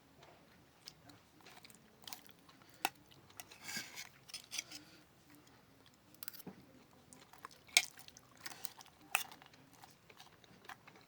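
Close-miked eating of pepes ikan mas: chewing with wet mouth smacks and scattered sharp clicks, the loudest a little under 3 seconds in and near 8 and 9 seconds in.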